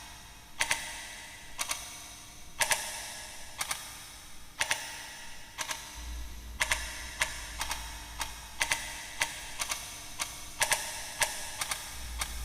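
Layered clock tick-tock sound effect for stopped time: sharp, echoing ticks in pairs about once a second. About six seconds in, the ticks become denser as more layers join, and a low hum starts.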